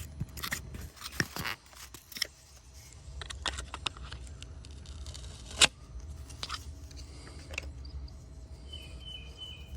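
A product box and its packaging being handled and opened by hand: scattered clicks, rustling and scraping, with one sharp click about halfway through.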